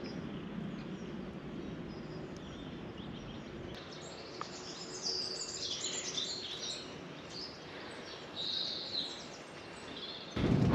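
Small birds chirping and calling over a steady low outdoor hiss. The calls are thickest in the second half.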